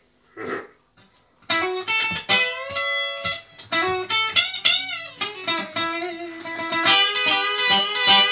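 Guitar playing a song intro, single notes with bends and slides, starting about a second and a half in.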